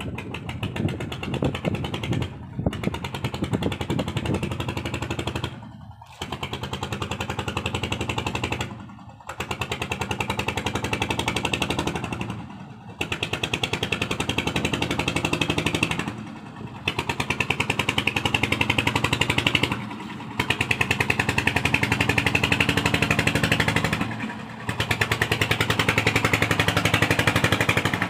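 Diesel engine running with a fast, even putter that drops out briefly every three to four seconds.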